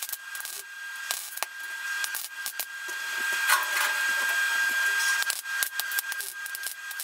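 MAG welding with a Stahlwerk 135 MIG IGBT welder: the arc crackles and spits in a fast run of sharp clicks as thin washing-machine sheet steel and a hand-fed filler rod are tacked together. A steady high tone runs underneath.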